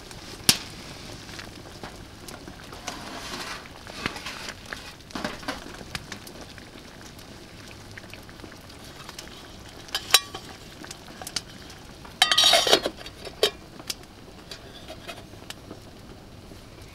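Mushroom soup simmering in a metal pot on a small wood stove, with a steady low hiss and scattered clicks and crackles. About twelve seconds in there is a short, loud metallic clatter and scrape as the pot's metal lid is set back on.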